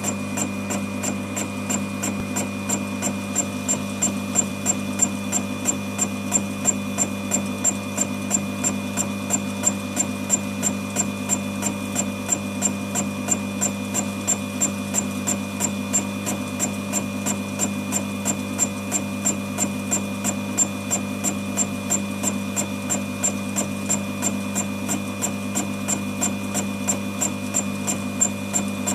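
Home-made fly-cutter on a small Proxxon machine taking a facing cut across a metal block, its motor running with a constant hum. A regular sharp ticking, several times a second, comes as the single cutter strikes the work each turn.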